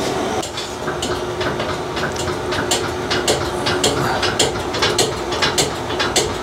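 Red scissor-type motorcycle lift being raised under a loaded bike. Sharp mechanical clicks come at a regular pace of about three a second, over a steady hum.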